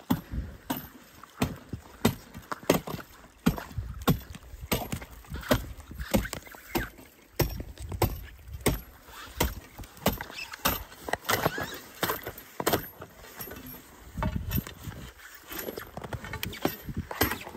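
Footsteps crunching through snow and ice at a steady walking pace, one crunch every half second or so.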